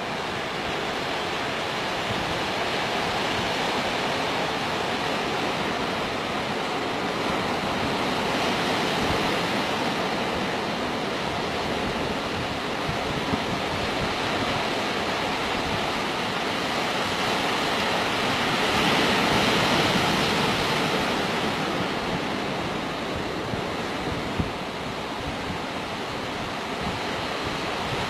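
Sea surf washing on a beach: a steady rushing wash that swells and eases, loudest about two-thirds of the way through.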